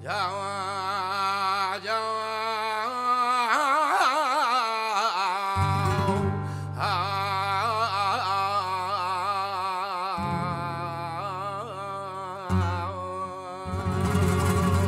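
Male flamenco cantaor singing a malagueña: long, ornamented vocal lines with a strongly wavering pitch, over sustained flamenco guitar notes. The voice breaks off for a breath about six and a half seconds in, then carries on.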